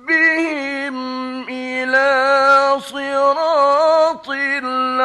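Male Quran reciter chanting in the melodic Egyptian tajweed style, holding long ornamented notes with short breaks between them, from an archival radio recording.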